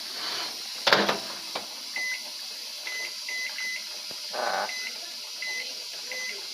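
A microwave's keypad beeping as buttons are pressed: seven short high beeps at uneven spacing. A loud knock comes about a second in.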